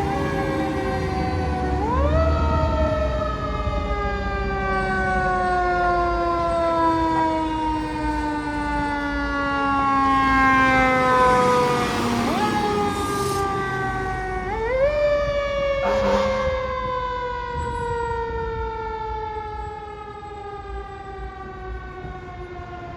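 Fire truck siren winding up quickly twice, about two seconds in and again near fifteen seconds, each time then sliding slowly down in pitch over about ten seconds. A low vehicle rumble runs underneath.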